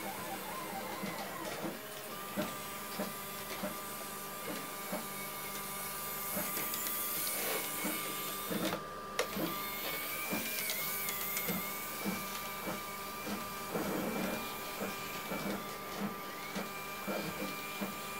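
Small electric motor running with a thin, steady high whine that cuts in and out, over soft regular clicks about one and a half times a second.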